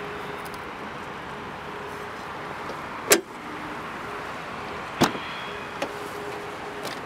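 The Mitsubishi Colt's fuel filler flap snapping shut with a sharp click about three seconds in, then the clack of the rear door latch as the door is pulled open about two seconds later, over a steady background hiss.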